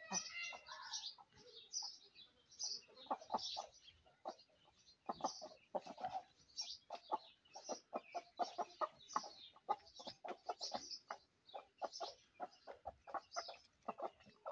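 Chickens clucking in many quick, short notes, with high thin chirps mixed in all the way through and a longer call near the start.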